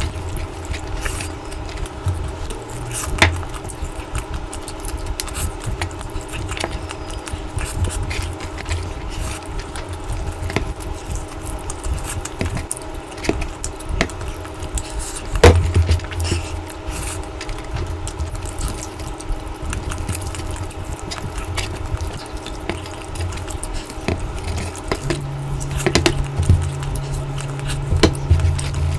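A person eating curry and rice: many short wet clicks and smacks of chewing and of handling the food, over a steady low hum, with one louder smack about halfway through.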